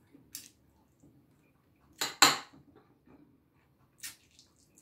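Metal spoon and fork clinking and scraping against a plate while eating: a few short clinks, with the loudest pair close together about two seconds in and another near the end.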